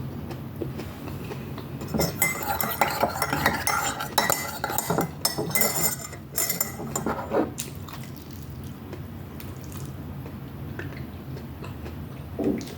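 Metal cutlery clinking and scraping against a plate while food is scooped up. A busy stretch of clatter lasts several seconds, then it goes quieter.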